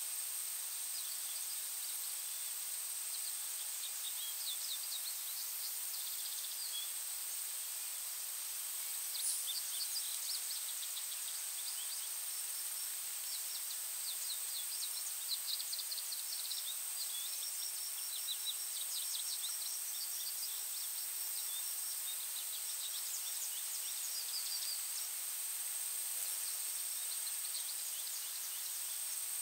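Forest ambience: small birds chirping and trilling in bouts over a soft steady hiss and a constant high-pitched tone.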